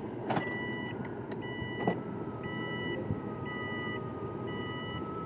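A vehicle's electronic warning chime beeping steadily about once a second, five times, with a faint steady whine and a few light knocks in the cab.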